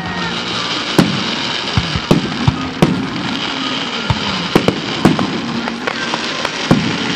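Aerial fireworks shells bursting overhead: about ten sharp bangs at irregular intervals, each trailing off in an echo, over a steady background hiss.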